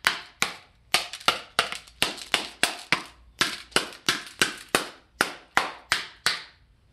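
Hammer beating on the hard plastic fuel tank and rear handle housing of an old STIHL 038 chainsaw, about twenty sharp hollow knocks at roughly three a second, stopping shortly before the end. It is a toughness test, and the 40-year-old tank takes the blows without breaking.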